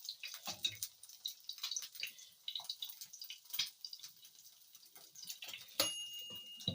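Fat sizzling and spitting in a frying pan with an egg frying, a steady run of irregular crackles and pops. Near the end a sharp clink is followed by a short ringing tone.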